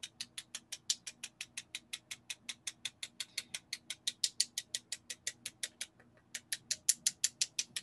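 A paintbrush tapped rapidly against the handle of a second brush to spatter white acrylic paint as stars: a steady run of light clicks, about six a second, with a brief pause about six seconds in.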